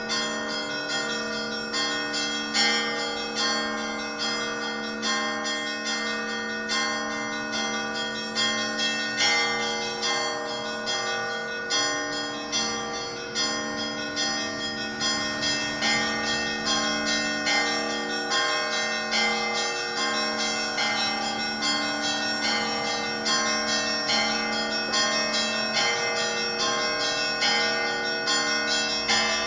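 Orthodox cathedral bells rung together in a continuous peal. Many bells of different pitches are struck in quick, overlapping succession and ring on without a break.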